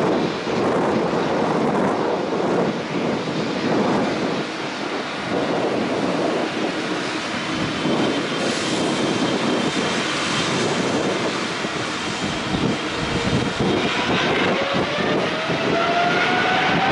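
Jet engines of a departing Boeing 777 at takeoff power: a loud, steady rumble, with a rising whine coming in near the end.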